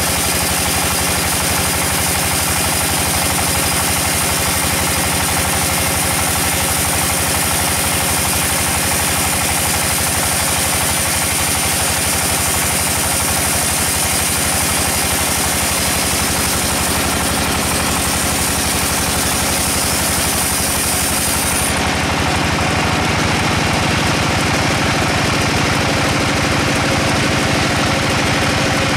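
Band sawmill running with its blade cutting lengthwise through a large hard log: a steady machine drone under a high, constant whine. About three-quarters of the way through, the high whine stops while the sawing goes on.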